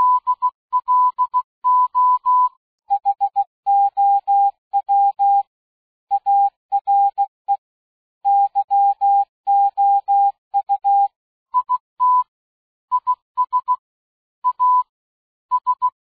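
Morse code sounded as electronic beeps of a single steady tone, short dots and longer dashes with gaps between letters and words, spelling out 'hello', 'how are you' and 'it is a sunny day'. About three seconds in the tone drops to a slightly lower pitch, and it goes back up near the twelve-second mark.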